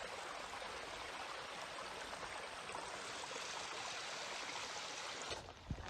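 Steady rushing of a mountain stream. Near the end it gives way to a few soft thumps.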